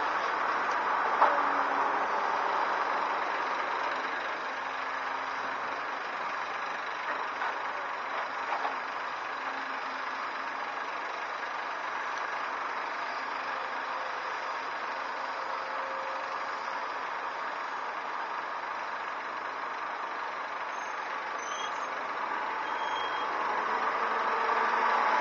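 Diesel engines of a crawler excavator and articulated dump trucks running steadily while loading, with one sharp knock about a second in. The engine noise eases in the middle and grows louder again near the end.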